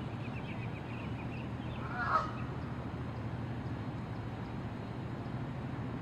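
A single Canada goose honk about two seconds in, over a steady low background rumble.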